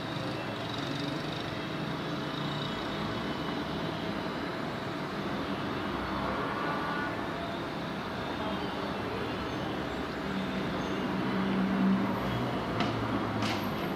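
City street traffic: a steady wash of passing cars and engines over a faint constant hum. One vehicle's low engine swells louder about ten to twelve seconds in, and two brief, sharp, high-pitched sounds come near the end.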